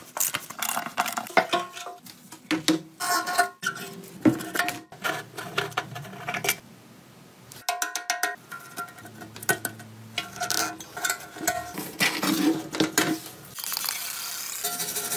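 Irregular metal clinks, knocks and clatter of hand tools and steel motorcycle parts being handled, some of them ringing briefly, with a socket wrench working on a bolt. Near the end comes a steady hiss from a trigger spray bottle spraying cleaner onto the painted steel fuel tank.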